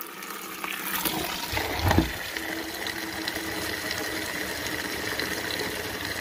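Water from a hose nozzle spraying into a plastic bucket, a steady rushing hiss as the well pressure tank system is drained down. A single thump comes about two seconds in.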